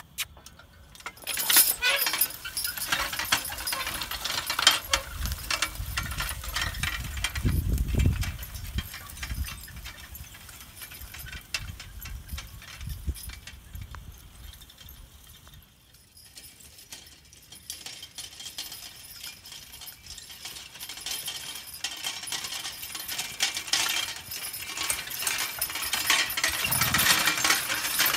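Horse-drawn harrow and forecart rattling and jangling as a team of draft horses pulls it over pasture, with chains and metal parts clinking. The rattle eases off for a few seconds in the middle and then builds again.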